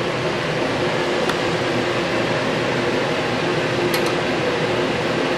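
Steady mechanical hum of a running bobbin-winding machine, with a couple of light clicks.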